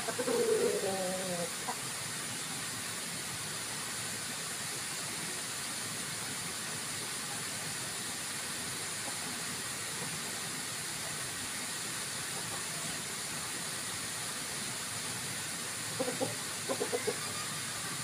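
Chickens clucking briefly at the start and again a few times near the end, with a steady hiss of background noise in between.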